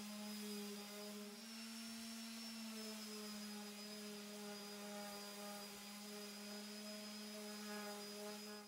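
Makita random orbital sander running steadily, heard quietly: a low motor hum with a thin high whine, its pitch wavering slightly as it works along the edge of the wood.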